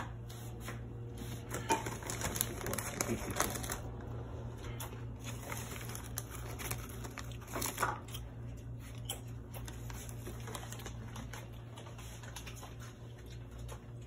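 Scattered light clicks and rustles of things being handled on a kitchen counter, busiest about two to three and a half seconds in and again near eight seconds, over a steady low hum.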